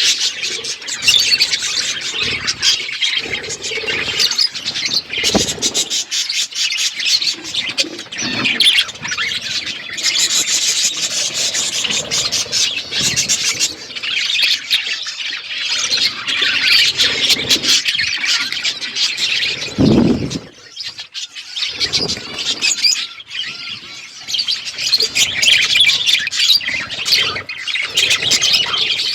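Budgies and lovebirds chirping and chattering without pause, many rapid, overlapping high calls. A few low knocks come through, the loudest about twenty seconds in.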